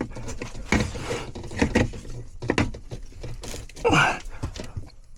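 Scattered clicks and knocks of hands working a breaker into an electrical disconnect box, with a short grunt or breath about four seconds in.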